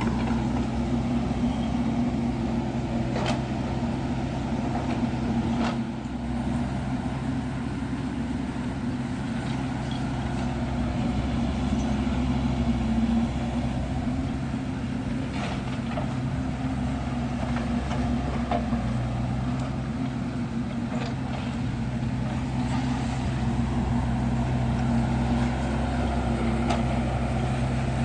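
Kubota U50 mini excavator's diesel engine running steadily while it works, with a few sharp knocks from the machine.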